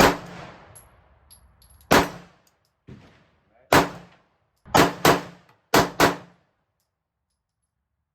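Glock 19X 9mm pistol firing seven shots: three single shots about two seconds apart, then two quick pairs.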